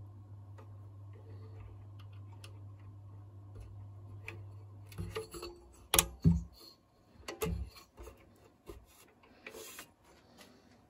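A steady low hum with scattered faint ticks stops about five seconds in. Several loud knocks and clunks follow, the sound of metal equipment being handled.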